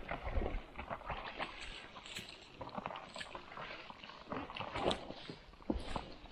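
Shallow water sloshing and splashing around a boat, with irregular knocks and clatter scattered through, as someone wades and handles gear.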